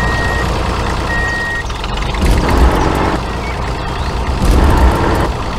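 A vehicle's reversing alarm beeping in single high tones about once a second, stopping after the second beep, over a steady engine rumble. The rumble grows louder in a few swells.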